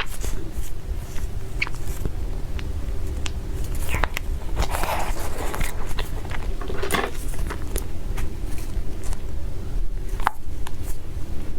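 Close-miked eating: someone biting and chewing food, with scattered small clicks and louder chewing stretches about four to five seconds and seven seconds in, over a steady low hum.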